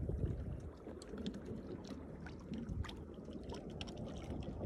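Small waves lapping against the hull of a jet ski drifting with its engine off, with scattered light water slaps over a low wind rumble.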